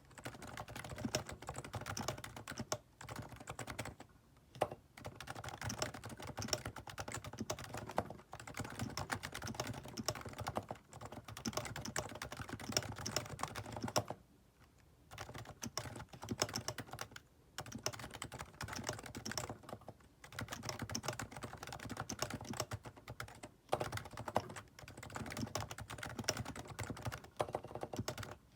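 Typing on a Topre Realforce R2TLS keyboard with silenced, evenly weighted 30 g electrostatic-capacitive rubber-dome switches. The keystrokes come in fast, steady runs broken by short pauses every two to four seconds.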